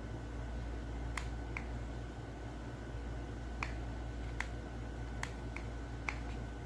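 Sharp clicks at irregular intervals, about nine of them, over a steady low hum.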